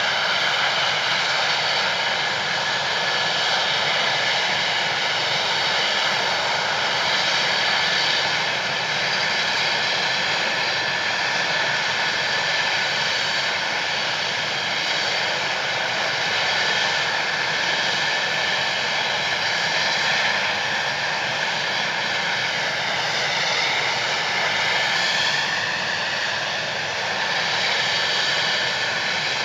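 Helicopter turbine engines and rotor running steadily, a loud high whine made of several steady tones. The tones shift in pitch briefly about three quarters of the way through.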